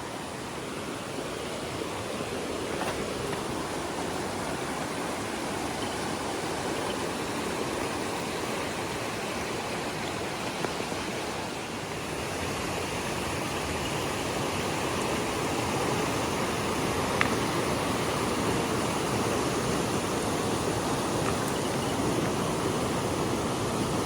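River water rushing in a steady wash, growing a little louder from about halfway through.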